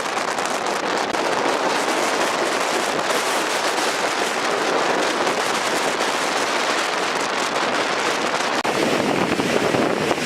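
Strong wind blowing hard, a loud, steady rush with a dense crackling texture. It dips for an instant near the end and comes back with more low rumble.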